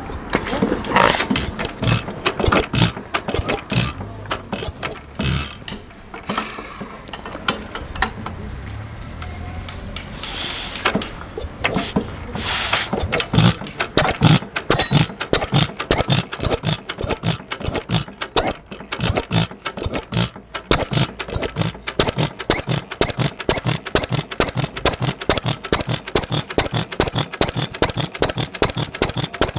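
Nishina 2.5 hp kerosene-fuelled OHV single-cylinder stationary engine running, described as in good tune, a rapid train of exhaust beats. The beats are uneven with a few brief hissing bursts in the first half, then settle into a close, even beat from about 13 seconds in.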